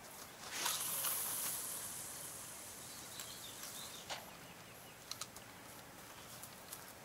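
Casting a bottom rig with a rod: a sudden swish about half a second in, then a hiss that fades over the next couple of seconds. A few sharp clicks follow later.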